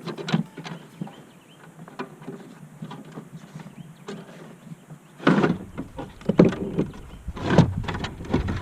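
Handling noise on a kayak: scattered clicks and scrapes, then several louder knocks with a low rumble starting about five seconds in, as a freshly caught bass is handled before being measured.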